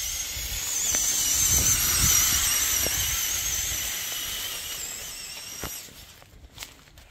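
Lego Technic 6x6 RC crawler's electric motors and gear train whining as it drives over grass: a high whine that wavers in pitch, loudest about two seconds in, then fading and dropping away near the end.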